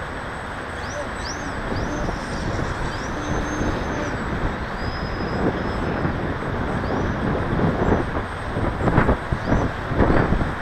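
Wind buffeting the microphone: a steady rough rumble, with stronger gusts from about eight seconds in.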